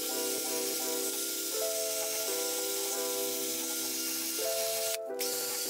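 Wire cup brush on a cordless drill scouring rust and old paint off a metal vise body, a steady hiss that breaks off briefly near the end. Background music plays over it.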